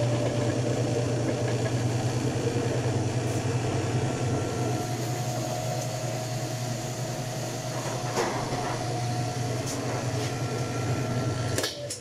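Roper top-load washing machine on its spin cycle: the motor and transmission hum steadily as the basket spins, spinning well on a new motor coupler. The hum cuts off suddenly near the end.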